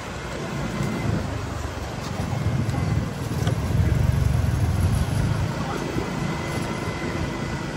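Motorbike riding at low speed, heard from on the bike: engine and road noise with wind rumbling on the microphone, louder around the middle.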